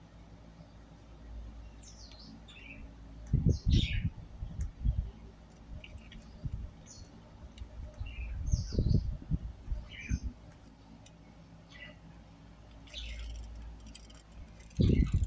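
Budgerigar chirping in short, scattered calls, each dropping quickly in pitch, over the low, steady rumble of a moving car. Three clusters of loud low knocks, about four seconds in, about nine seconds in and near the end, stand above everything else.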